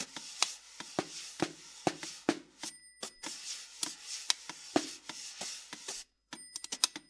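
Snare drum, its head partly damped by a cloth and carrying a plastic cup, struck with sticks in sparse, irregular sharp strokes about two a second, with scraping rubs between them and a quick flurry of strokes near the end. A thin high ringing tone comes in briefly twice.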